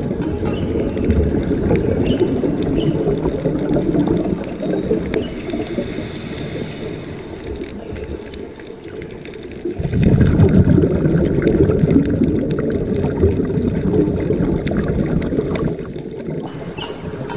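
Underwater gurgling and bubbling: a low, churning water noise that eases off and then swells again about ten seconds in.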